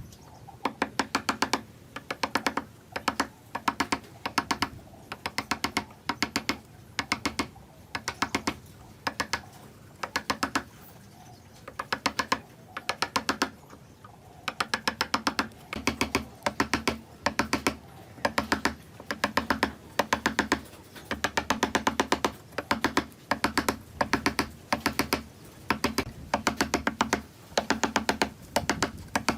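Rapid light tapping strikes on wood, in short bursts of several strikes a second, with a pause of a few seconds near the middle.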